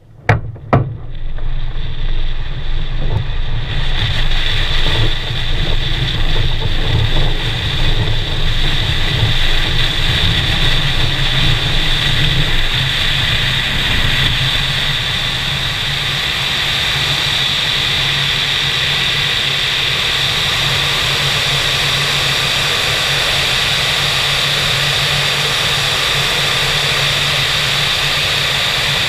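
Wind rushing over a camera mounted on the wing of an ASK 21 glider, with a faint steady whistle through it. A couple of sharp knocks about half a second in; the noise is rough and uneven at first and settles into a steady rush about halfway through.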